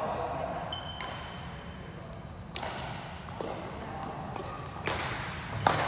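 A badminton rally: rackets strike the shuttlecock with sharp cracks, about six hits, the loudest near the end, each echoing in a large sports hall. Short high squeaks of court shoes on the floor come in between the hits.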